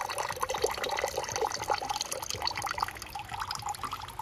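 A thin stream of liquid pouring from a glass beaker and trickling into a plastic tub of water: the solution being decanted off the gold after boiling in hot acid.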